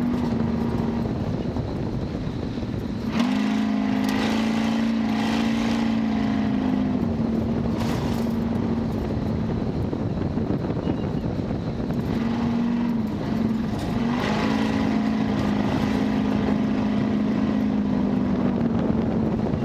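1972 Ford Bronco's engine running hard off-road, its pitch stepping up about three seconds in, dropping back, then rising again in the second half, over a steady rushing noise of the drive.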